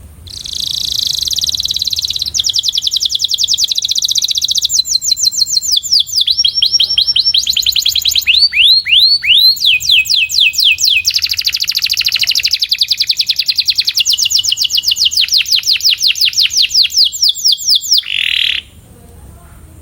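Canary singing one long song of fast trills, the phrase changing every second or two, with a run of falling sweeping notes about halfway through; it stops about a second before the end.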